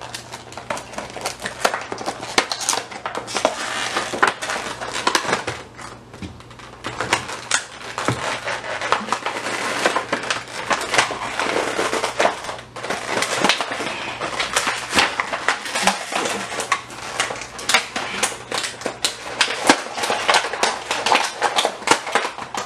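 A stiff clear plastic blister pack for a Shopkins Shoppies doll being handled and pried open: dense crackling, crinkling and sharp clicking of the plastic, with a couple of brief pauses.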